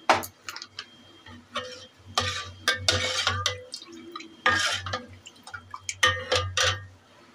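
A spoon stirring and scraping in a metal bowl, mixing raita in several bursts with short pauses, the bowl ringing faintly with each stroke.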